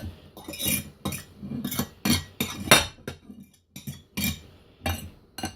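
Cutlery scraping and clinking against a dish as scooped potato is transferred into a cream-cheese mixture: a quick, irregular series of short scrapes and taps, with one louder clink a little before the midpoint.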